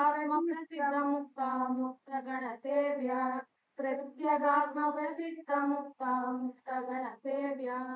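A single high voice singing a line of Kannada devotional verse in a slow, melodic chant, note by note, with short breaks between phrases. It comes through a video call, so it sounds thin and narrow.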